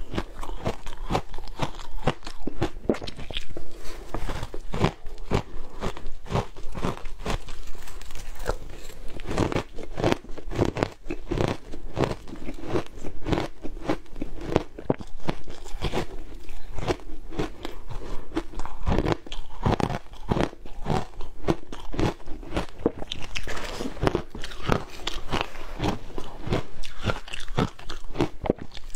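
Shaved ice being bitten and chewed: a continuous run of crisp, closely spaced crunches.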